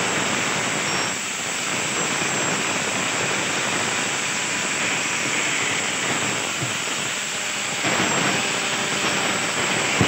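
Handheld electric angle grinder running steadily, its disc grinding along the edge of a weathered wooden board to trim it into a lid.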